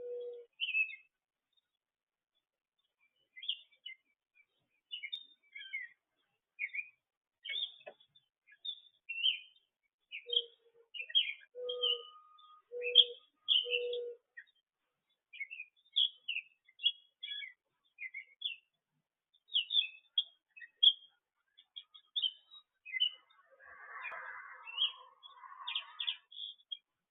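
Small songbirds chirping and tweeting in many short, high calls. Four or five low, short hooting notes sound in the middle, and a brief scratchy noise comes near the end.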